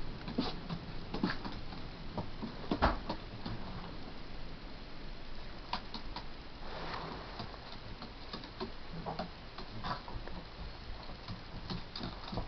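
Two papillon dogs play-fighting on a hardwood floor: their claws click and their paws scuffle in irregular taps, with a louder knock about three seconds in.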